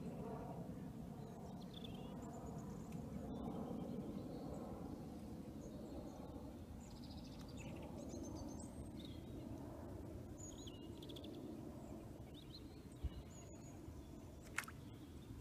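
Open-air lakeside ambience: a steady low rumble with scattered short, high chirps of small songbirds, and two sharp clicks near the end.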